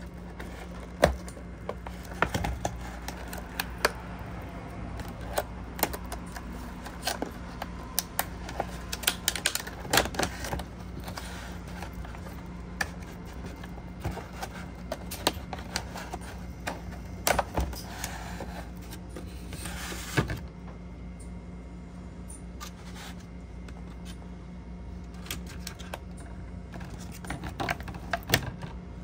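Clear plastic clamshell food container being handled and its tape peeled off, the thin plastic crackling and clicking irregularly. The clicks thin out after about twenty seconds and pick up again near the end, over a steady low hum.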